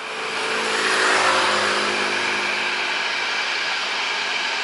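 Boeing 737-800's CFM56-7B jet engines running as the airliner taxis, a steady roar with a whining tone over it that swells about a second in, then holds level.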